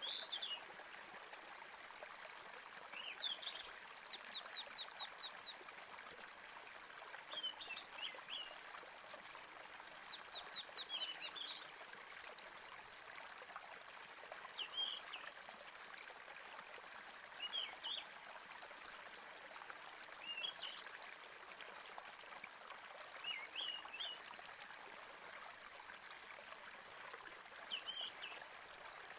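A stream running steadily with a small bird chirping short calls every few seconds. Twice the bird gives a quick run of about six rapid notes.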